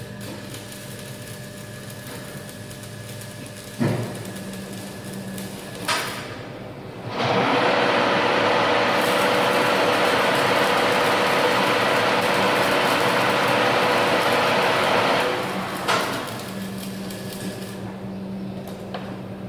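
Electric arc welding on a steel frame: a loud, steady crackling sizzle of the arc runs for about eight seconds, starting about seven seconds in. Two sharp knocks come before it and one after, over a steady machine hum.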